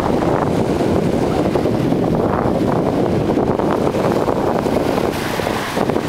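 Wind buffeting the camera microphone in a steady, loud rush, over small waves breaking at the water's edge.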